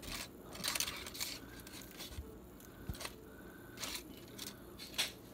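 Aluminium foil crinkling and a fork scraping in a series of short bursts as flakes of grilled catfish are picked off the foil, with one sharper scrape near the end.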